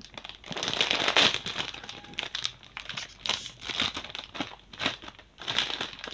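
Crinkly plastic chip packets rustling and crackling in irregular bursts as they are handled and pulled open.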